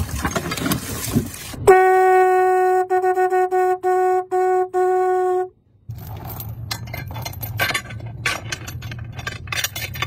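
A hand-worked deck pump clanking and splashing water for the first second or two. Then a horn sounds one steady note, broken by several brief gaps, for about four seconds and stops. Then a rusty anchor chain rattles and clinks on the wooden deck.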